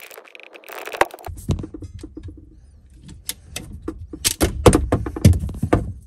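Sharp clicks and clacks of a hand plumbing tool being worked on a PEX water line, thickest and loudest in the second half, over low rumbling from hands handling the pipe.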